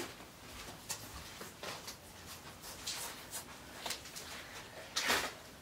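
Faint, irregular scraping and light ticking of a stir stick working through a cup of epoxy resin mixed by hand, with one short louder scrape about five seconds in.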